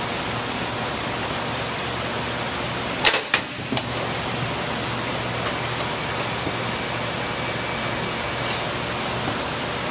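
Cardboard 4-bottle wine shipping carton released from a box drop tester hits the floor mat about three seconds in with a sharp thud, followed by two smaller knocks as it bounces and settles. A steady hiss with a thin high whine runs underneath.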